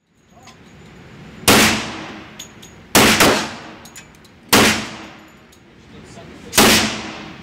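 A 10mm pistol firing Fort Scott Fortdefense 124-grain lead-free copper rounds, four single shots about a second and a half apart. Each shot rings back off the walls of an indoor range.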